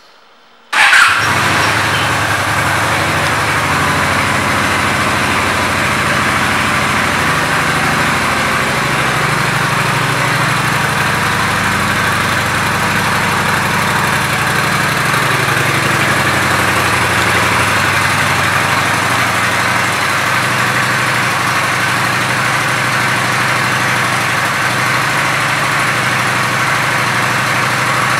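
2013 Honda Shadow Phantom's 745 cc V-twin engine starting about a second in, with a brief loud flare, then idling steadily.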